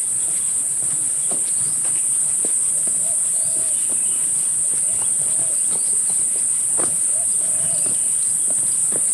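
Loud, steady, high-pitched chorus of insects droning without a break, with scattered short knocks.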